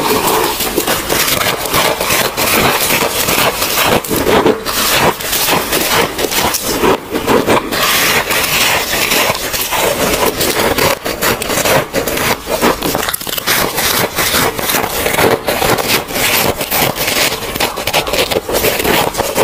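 Close-miked crunching of soft freezer frost and powdery ice, a loud dense run of small crackles and scrapes without a break.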